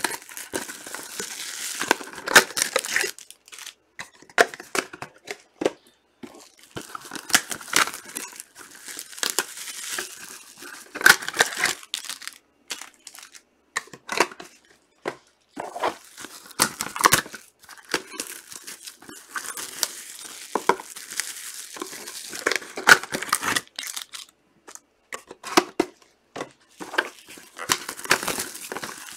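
Plastic trading-card pack wrappers crinkling and tearing as packs are ripped open, with cards shuffled and handled, in irregular bursts with short pauses.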